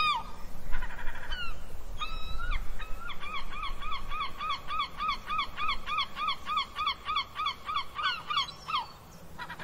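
A bird calling: a few separate calls, then a steady run of short repeated notes, about four a second, lasting several seconds.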